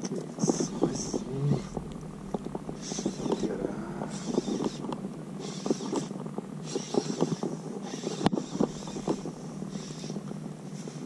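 Water splashing and lapping against a plastic sit-on-top fishing kayak as it is paddled, with a splash about every second or so and many small knocks and ticks against the hull.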